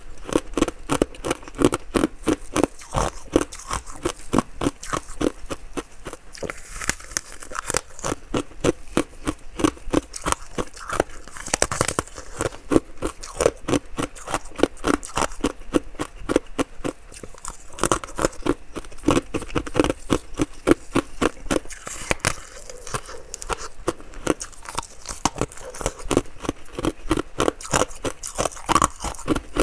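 Close-miked chewing of ice: a steady run of crisp crunches, several a second, without a break.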